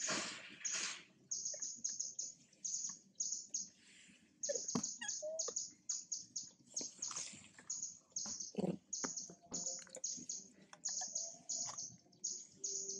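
Steady run of short, high chirps repeating about three times a second, with a few brief lower squeaks scattered among them, one rising in pitch near the start.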